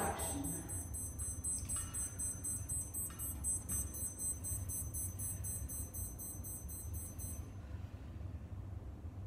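Steady low hum of room noise under a faint, high-pitched, rapidly pulsing electronic buzz that cuts off about seven and a half seconds in, with a few soft clicks.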